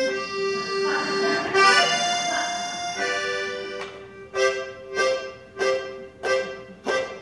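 Piano accordion playing a song intro: held chords at first, then, about three seconds in, short rhythmic chords struck roughly every two-thirds of a second.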